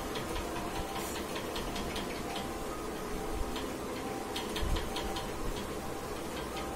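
Quick, slightly irregular ticking clicks, about four a second, over a steady low hum, with one soft low thump about four and a half seconds in.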